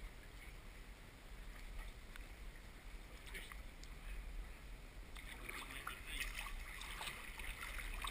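Faint pond water moving and splashing, with crackling clicks that grow busier about five seconds in, over a steady low hum.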